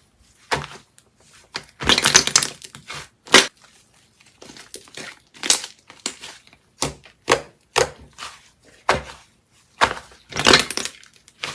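Slime being squeezed and poked by hand, making a series of sharp crackling pops and clicks at irregular intervals, with longer crackly stretches about two seconds in and again near the end.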